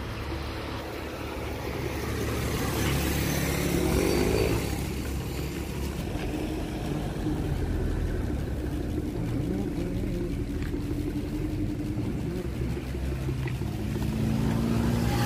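Vehicles passing on the road: engines humming, swelling to a peak about four seconds in, then continuing steadily.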